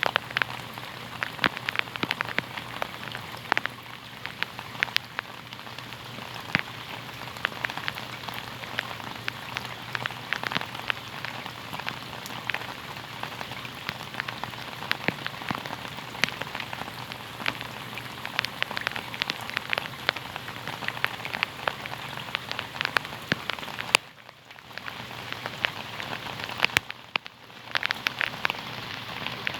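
Steady rain falling on a hard surface, with many close, sharp drop ticks over the even patter. The sound dips briefly twice near the end.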